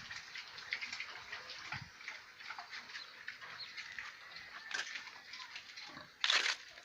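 Three-day-old piglets in a pen: a busy mix of short squeaks and grunts, with one loud squeal about six seconds in.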